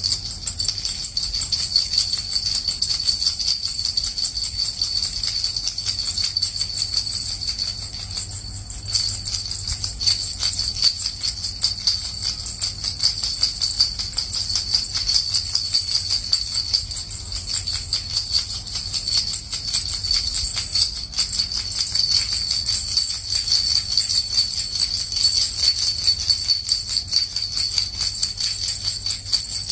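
Small jingle bells shaken gently and continuously: a steady, high, rapid jingling that does not pause.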